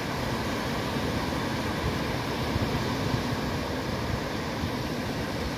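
Ocean surf breaking and washing up the beach, a steady rush of noise.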